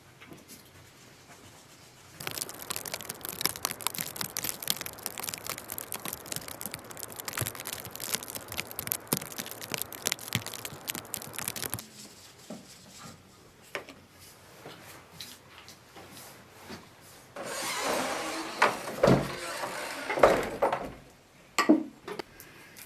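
Flour being sifted through a round hand sieve into a bowl: a dense, steady rustling rattle for about ten seconds, starting about two seconds in. Later comes a shorter burst of rustling with a few sharp knocks.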